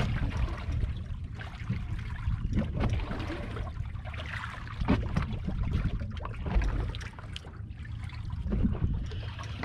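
Small waves lapping and splashing against the side of a boat's hull, with wind rumbling on the microphone.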